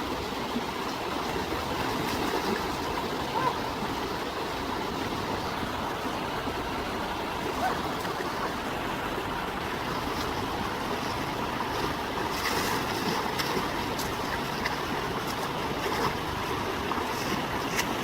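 Steady rushing of flowing stream water, with a few light knocks in the last third.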